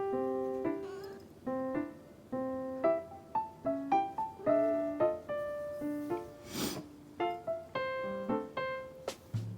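Background piano music: a light melody of short notes, each struck and fading away. About six and a half seconds in, a brief burst of hiss sounds over it.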